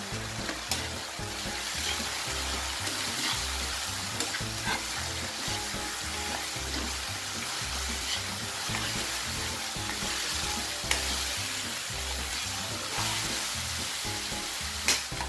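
Beef ribs sizzling in soy sauce and aromatics in a nonstick wok while a metal ladle stirs them, with a few sharp knocks of the ladle against the pan.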